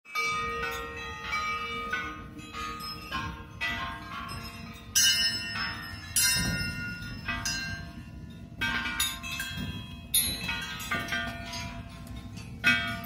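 Struck metal percussion ringing like bells in an improvised piece: many overlapping strikes, each tone ringing on and slowly fading, with louder hits every second or two.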